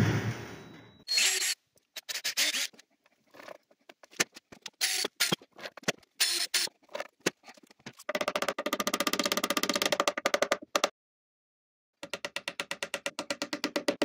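A drill-driven lathe dies away at the start, then percussion music follows: scattered drum hits, then runs of rapid, evenly spaced strokes, with a short break about eleven seconds in.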